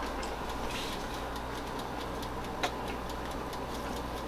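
Quiet room tone: a steady low hum with faint scattered clicks, and one sharper click about two and a half seconds in.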